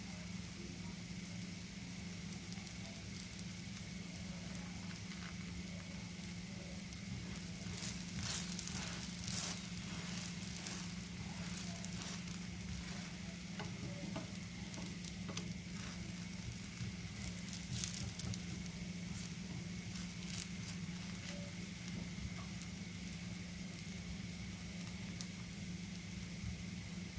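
Crepe frying in an oiled pan, a steady sizzle with denser crackling about eight to eleven seconds in and again around eighteen seconds, and one sharp click near the middle.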